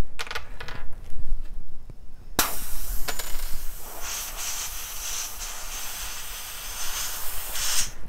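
Air hissing out of a nail puncture in a Hutchinson Fusion tubeless road bike tire as the nail is pulled, the tire losing pressure through the hole. The hiss starts suddenly about two and a half seconds in, runs evenly for about five seconds and cuts off abruptly near the end, after a few light clicks from handling the nail.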